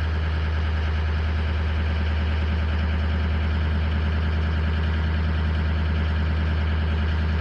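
2005 Ford Super Duty's 6.0L Power Stroke V8 diesel idling steadily at about 1,175 rpm, heard from inside the cab. The turbo's variable-geometry vanes are being commanded but the engine builds no boost: the turbo is seized.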